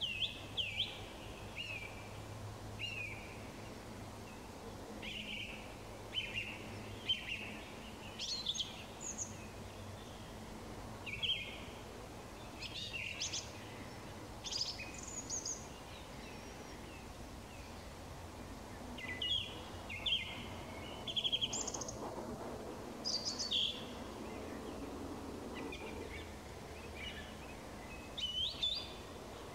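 Evening songbirds singing: short chirping phrases from several birds, repeated every second or two, over a faint low background hum.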